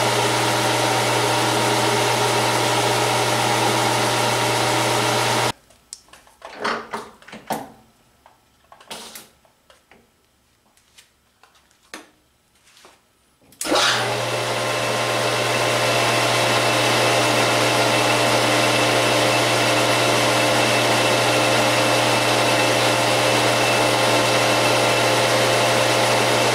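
Metal lathe running steadily, a hum with several steady whining tones from its drive. About five seconds in it cuts off abruptly, leaving a few light clicks and knocks, then starts up again about fourteen seconds in and keeps running.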